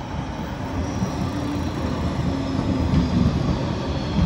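Articulated street tram passing close by, its wheels and running gear rumbling louder as it nears. A faint high whine slowly falls in pitch through it.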